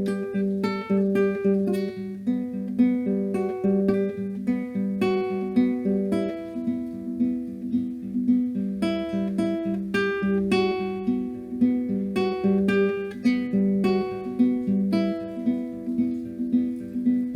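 Acoustic guitar music: a plucked, steady finger-picked pattern with a regular pulse.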